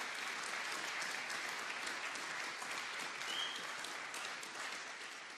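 Applause, many hands clapping, steady and then fading out near the end.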